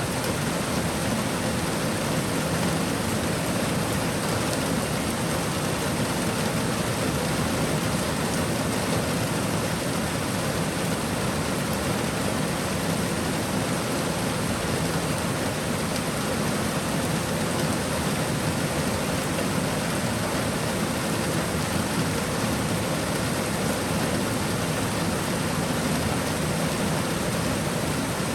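Steady rain shower, an even wash of rainfall with no distinct drips or breaks.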